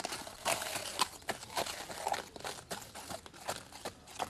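Horse's hooves crunching on a gravel path as it walks and then trots, mixed with the handler's footsteps: a run of irregular crunchy steps, densest and scuffing in the first second.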